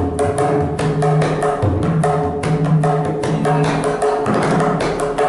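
Tabla played solo at a fast, even pace: crisp strokes on the treble drum (dayan) ring at a steady pitch, mixed with deep, recurring strokes on the bass drum (bayan). The pattern is a Tisra jati (triplet-based) qaida in teental.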